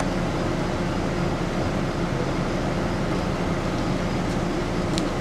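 Steady mechanical hum with a constant low drone, and one sharp click near the end.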